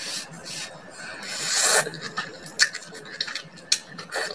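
Close-up eating sounds: a long slurp of water spinach strands that swells about a second and a half in, then wet chewing with a few sharp mouth smacks or clicks.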